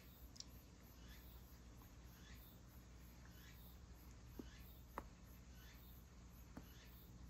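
Near silence: room tone with a low hum, faint high chirps that repeat about every half second, and a few faint clicks.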